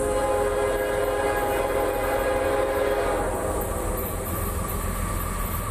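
Diesel freight locomotive's air horn sounding one long chord blast that fades out after three to four seconds, over the steady low rumble of the approaching train.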